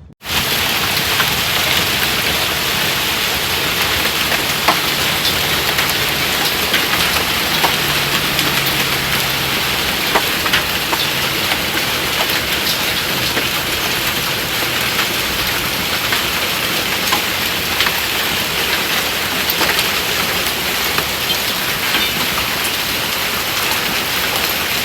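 Heavy rain pouring down in a steady, loud hiss, with scattered sharp ticks of hail striking among it.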